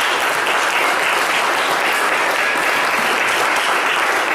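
A congregation applauding: many people clapping at once in a dense, steady wash of sound.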